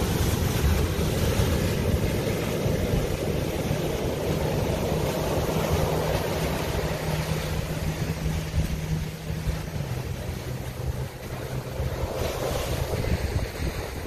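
Ocean surf breaking and washing up a sandy beach, with wind buffeting the microphone. A low steady hum runs underneath through the middle, stopping about ten seconds in.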